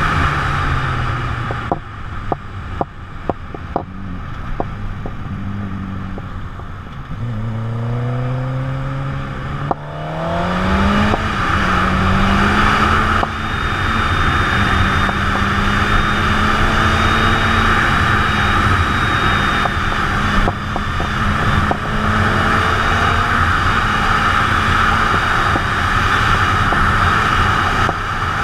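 Suzuki sport bike engine heard from on the bike: the revs drop at first and it runs quieter for a few seconds with scattered clicks. It then accelerates hard, its pitch climbing twice through a gear change, and settles into a steady cruise under heavy wind rush on the microphone.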